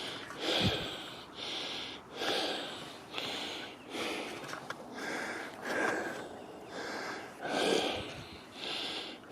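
A man breathing hard close to the microphone, about one loud puff of breath a second.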